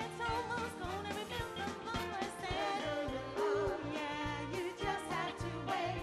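A female vocal group singing live with a band of drums, bass and electric guitar.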